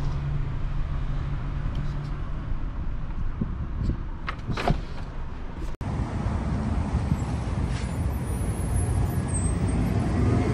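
A pickup truck's engine idles, heard from inside the cab as a steady low hum, with a sharp knock about four and a half seconds in. Just before halfway the sound cuts to outdoors, where a pickup truck's engine runs close by amid traffic noise.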